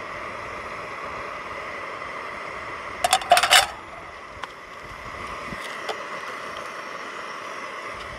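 A round stainless steel wire rack is set down into a nonstick frying pan. It gives a quick cluster of metal clinks and rattles about three seconds in, then a couple of faint ticks as it settles, over a steady background hiss.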